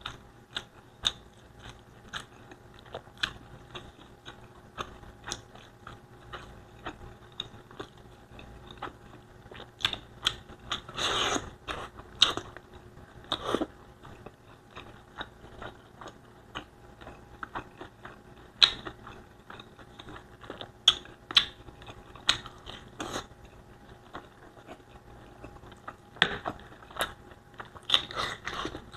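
Close-miked mouth sounds of someone eating Bicol Express (pork in chili coconut sauce) with rice: wet chewing and lip smacks in a quick run of sharp clicks, with a few louder, longer bursts in the middle and near the end.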